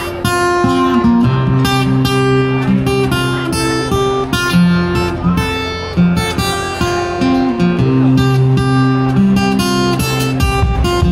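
Small band playing live without vocals: a strummed acoustic guitar leads, with electric guitar and keyboard, over a steady rhythm and held low notes.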